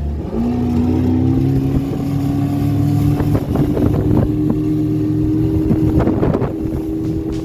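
Motorboat engine throttling up as the boat gets under way: its tone rises in pitch over the first couple of seconds, then holds steady at cruising speed. Wind buffets the microphone, and a few knocks come through in the middle.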